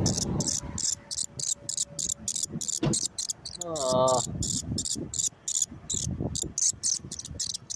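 Insects chirping in a rapid, even, high-pitched pulse, about four chirps a second, without pause.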